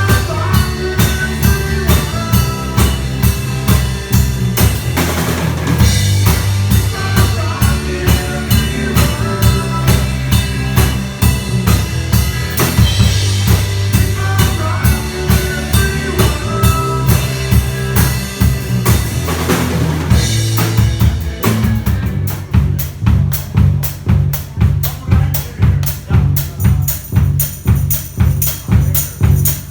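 Live band playing an instrumental passage: a drum kit keeps a steady beat under low bass notes and a melodic line. About two-thirds of the way through the melody drops out, leaving drums and bass, and near the end a fast cymbal pattern joins in.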